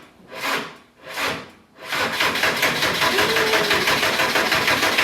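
Van engine being cranked by its starter motor without firing: a few slow, heavy turns a little under a second apart, then steady, fast cranking from about two seconds in. It turns over on a fresh, stronger battery but does not catch.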